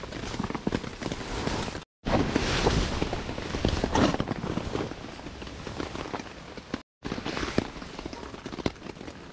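Rustling, scuffing and knocking of a nylon backpack and tent fabric being handled, over rain pattering on a tarp. The sound drops out to silence twice, briefly.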